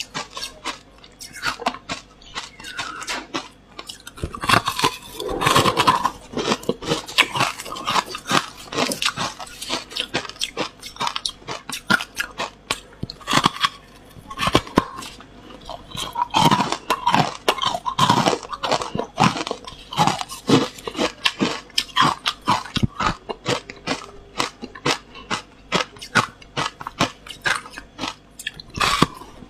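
Hard ice being bitten and chewed close to a lapel microphone: a dense run of sharp crunching cracks, with a few louder bites around five seconds in and again past the middle.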